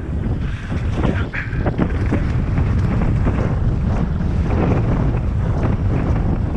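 Wind rushing over a helmet-mounted camera's microphone during a fast mountain bike descent, with the tyres rolling over wet dirt and rock and the bike clattering over the bumps. A brief louder scrape or splash comes about a second and a half in.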